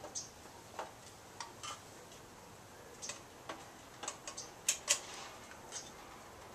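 Scattered light clicks and knocks as the plastic upper housing of a 1957 Automatic Electric three-slot payphone is worked loose and lifted off its backboard, with two louder clacks nearly five seconds in.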